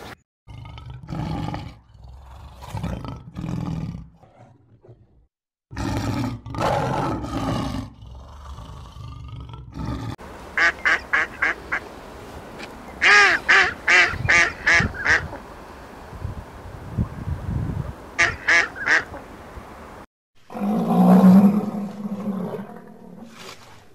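Animal calls from several short clips cut together. In the middle come groups of short, rapid calls, several a second, and near the end a lower, louder call.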